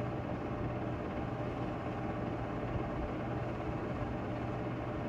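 8-mm home-movie projector running: a steady whirr with a constant low hum and hiss, unchanging throughout.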